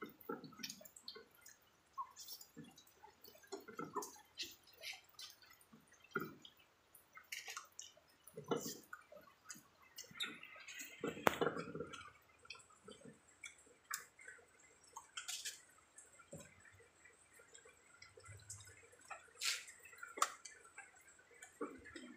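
People eating with their hands from ceramic plates: irregular soft clicks, taps and smacks from fingers, plates and mouths, with a louder, longer burst about eleven seconds in.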